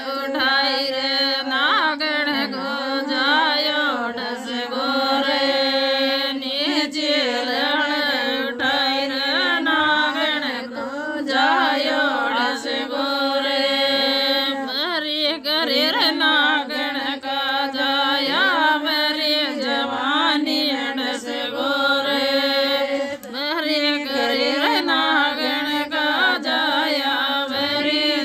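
Rajasthani devotional song to Tejaji: a voice sings over a steady drone, with no clear beat.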